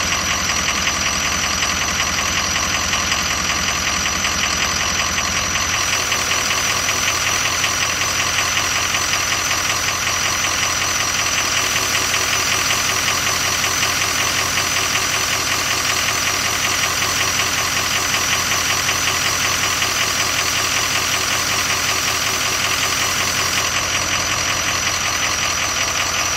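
Ford 6.0 Power Stroke V8 turbodiesel running, with a steady high whistle over the engine. The uploader later identified the whistle as the variable-geometry turbo oscillating, apparently normal at idle on very early 6.0s.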